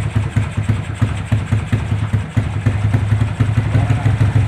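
Motorcycle engine with a 57 mm big-bore block idling through an aftermarket ORBR 'chicken pipe' exhaust, a steady low note with an uneven, pulsing beat.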